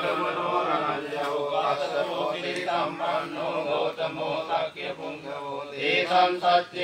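Male voice chanting Buddhist pirith in Pali, a slow melodic recitation that runs on without a break.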